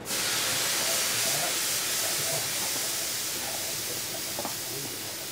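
Compressed air blowing off from a JR Kyushu 305 series electric train's pneumatic system: a loud hiss that starts suddenly and slowly fades away.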